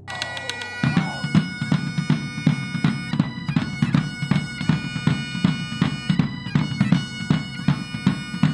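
Scottish bagpipes playing with their steady drones, joined about a second in by big drums beating a steady rhythm of about three strikes a second.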